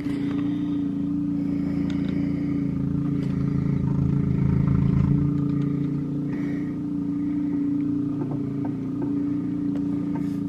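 Gas snow blower engine running steadily.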